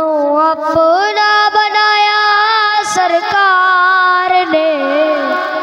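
A boy singing the opening of a Punjabi naat into a microphone: one long, ornamented melodic line with gliding pitch and a short breath about three seconds in.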